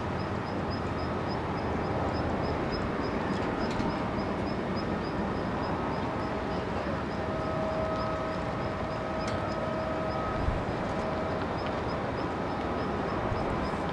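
Distant Boeing 777F's GE90 jet engines running at taxi power: a steady rushing hiss, with a faint whine coming in around the middle. A faint high ticking repeats about three times a second.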